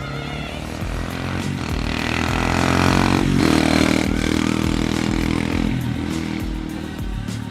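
Small motorbike engine passing close by at speed: it grows louder, its pitch drops sharply as it goes past about three seconds in, then it fades away.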